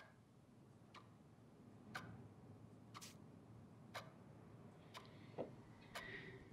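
A clock ticking quietly and evenly, one tick each second.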